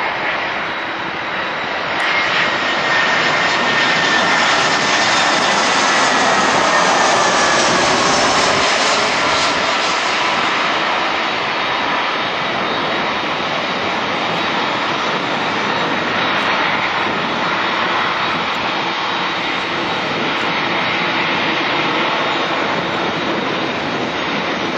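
Turbofan engines of an Airbus A319-112 airliner, a loud jet roar that swells about two seconds in and then holds steady. A high whine in the roar falls slowly in pitch over the first ten seconds or so as the aircraft passes.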